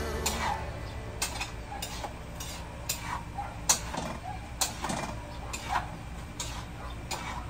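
A cooking utensil knocking and clinking against a pan on the stove while food is stirred, in irregular sharp taps about once or twice a second.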